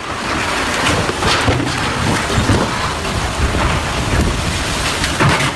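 Strong storm wind blowing hard and buffeting the microphone in a steady loud rush of noise.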